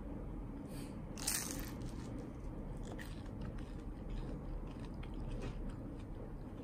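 Close-up chewing of crisp toast, with a loud crunch a little over a second in, then softer, scattered crunches as it is chewed.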